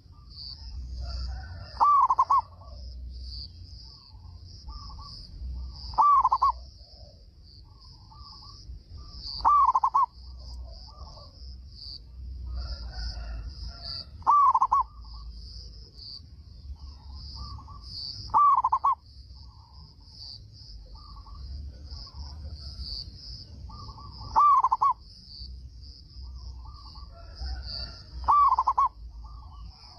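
Zebra dove (perkutut) cooing: seven loud coos, each a quick pair of arching notes, spaced about four seconds apart, with softer short cooing notes between them. A steady high buzz runs underneath.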